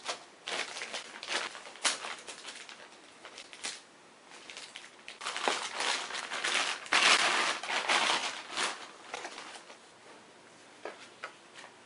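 Clear plastic packaging bag crinkling and rustling in irregular spells as a tripod is slid out of it, with a few light knocks near the end.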